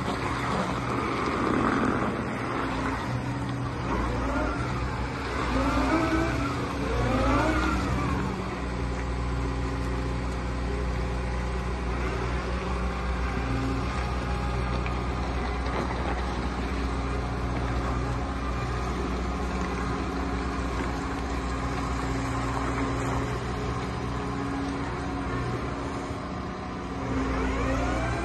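Liebherr A912 Compact wheeled excavator's diesel engine running steadily as the machine drives, with a few rising-and-falling whines from it about four to eight seconds in and again near the end.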